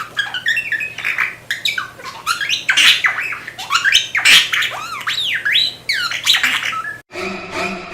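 A bird calling again and again in quick squawks, chirps and whistles that sweep up and down in pitch, stopping abruptly about seven seconds in.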